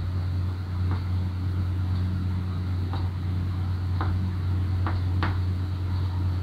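Chalk tapping and scraping on a blackboard as a word is written: short sharp strokes about once a second, with two close together near the end, over a steady low hum.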